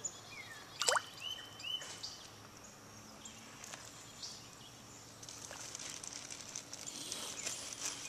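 A large snapping turtle surfacing and stirring the water, with splashing and sloshing building from about five seconds in. A short sharp sound comes about a second in, and birds chirp in the background.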